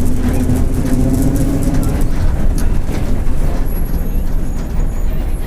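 Mercedes-Benz OF-1722M city bus under way, its engine and cardan driveshaft giving a low, steady rumbling drone. A steady hum is heard for about the first two seconds and then fades back into the rumble.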